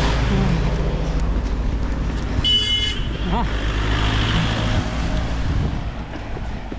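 A motor vehicle running close by with road noise, and a short horn beep lasting about half a second, about two and a half seconds in. The engine noise eases near the end.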